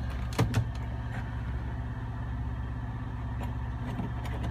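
Kenworth T660 semi truck's engine idling with a steady low hum, heard inside the sleeper cab. A brief knock about half a second in.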